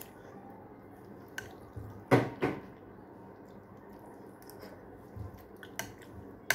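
A person eating instant noodle soup from a ceramic bowl: wet slurping and mouth sounds, light clicks of a spoon against the bowl, and two louder sounds in quick succession about two seconds in.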